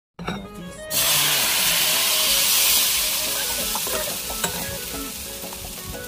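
Kefir pancake batter sizzling in a hot oiled crepe pan. The sizzle starts suddenly about a second in as the batter goes in, then slowly fades.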